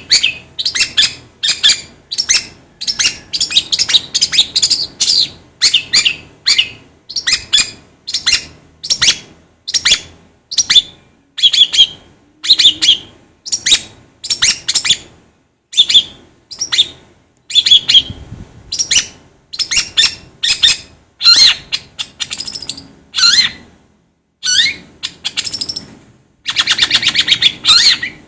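Long-tailed shrike (cendet) singing: a fast, continuous string of short, sharp chirps and harsh notes, several a second, with a buzzy rattle near the end.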